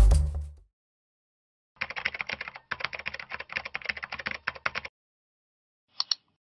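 Computer keyboard typing sound effect: about three seconds of rapid key clicks with a short break, followed near the end by a quick double mouse click. The low end of a music sting fades out in the first half-second.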